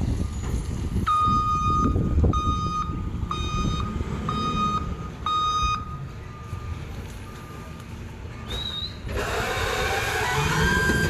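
Garbage truck's back-up alarm beeping steadily, about once a second, for several seconds, then trailing off. Near the end the truck's engine noise swells loud.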